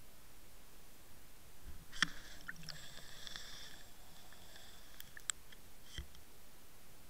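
Underwater camera on a float rig being knocked as it swings: a sharp knock, then a faint high whine for about three seconds, then a few sharp clicks and a low thud near the end.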